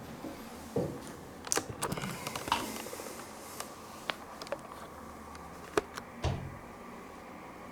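Irregular clicks and handling rustle of a small clip-on wireless mic unit being fitted to a shirt with its magnet: a quick cluster of clicks early on, then a few scattered sharp clicks.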